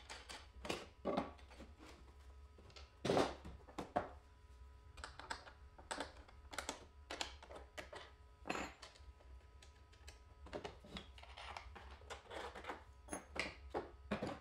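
Handling noise on a wooden workbench: MDF jig parts and a cordless planer being moved, set down and fitted, making irregular knocks and clacks, the loudest about three seconds in. The planer is not running.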